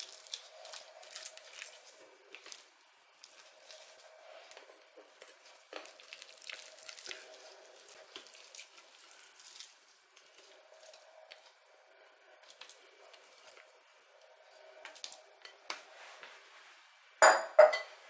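A spatula scraping and tapping against the inside of a glass mixing bowl, with scattered faint clicks, as a minced chicken mixture is pushed out of the bowl. Near the end come two louder knocks close together.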